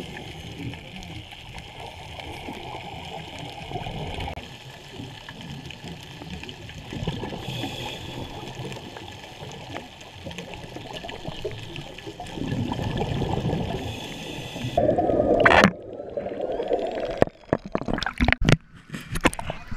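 Underwater sound on a scuba dive: muffled water noise with gurgling bubbles, swelling louder about twelve seconds in. Near the end comes a sudden loud rush, then a run of sharp knocks and splashes.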